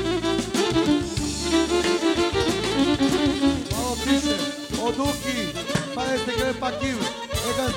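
Live band music: a lively folk dance tune with a wavering lead melody over a steady bass, and a man singing into a microphone.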